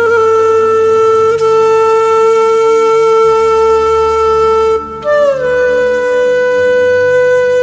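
Background music: a wind instrument playing long held notes over a low steady accompaniment. The first note stops about five seconds in, and a higher note slides down into the next long note.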